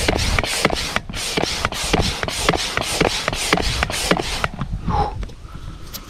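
Small air pump worked in quick, even strokes, about four hissing puffs a second, inflating the first chamber of an inflatable kayak. The pumping stops about four and a half seconds in.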